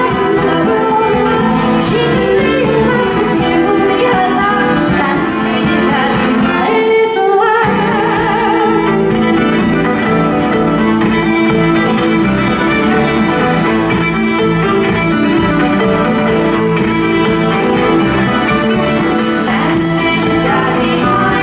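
Live folk song played on fiddle and acoustic guitar, with singing over the top. There is a short break in the low accompaniment about seven seconds in.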